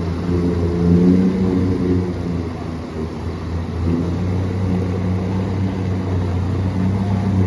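An engine running at a steady pitch, a low continuous hum.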